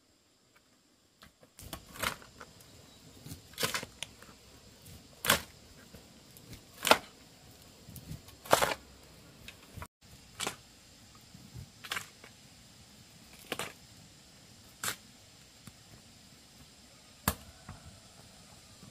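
Digging tool chopping into packed earth: sharp strikes about every second and a half, beginning about a second and a half in.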